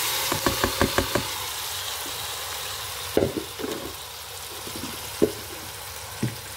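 Chicken pieces sizzling as they go into the hot Instant Pot, the frying hiss slowly easing off. A quick run of about five knocks in the first second, then a few single knocks, as pieces and the spoon hit the inner pot.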